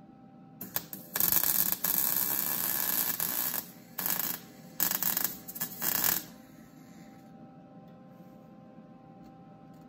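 Wire-feed welder arc crackling as it welds steel black-pipe fittings together: a brief stuttering start, one run of about two and a half seconds, then a few shorter bursts, stopping about six seconds in. After that only a steady electrical hum is left.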